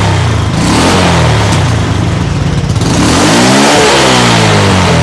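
Honda Wave motorbike's small single-cylinder four-stroke engine idling steadily, then revved up once and allowed to fall back to idle about three seconds in.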